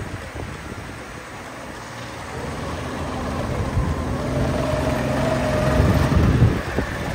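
Go-kart engine running, growing steadily louder as the kart approaches and passes close by, loudest about six seconds in, then dropping away.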